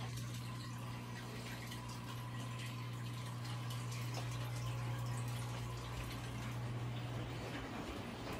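Aquarium equipment running: a steady low hum with water trickling and dripping.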